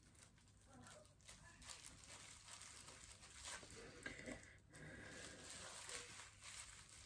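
Very faint rustling and rubbing: a makeup wipe being rubbed over the skin and a plastic hairdressing cape crinkling with the movement.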